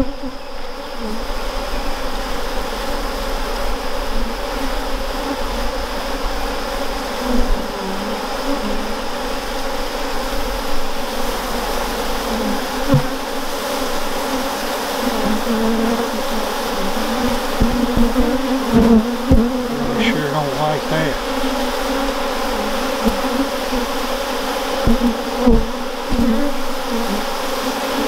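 Honeybees buzzing in a dense, steady hum over an open hive as they are brushed off a frame of queen cells, with a few short knocks now and then.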